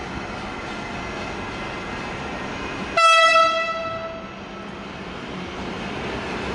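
Steady rumble of a train, with a short, loud single-tone train horn blast about three seconds in.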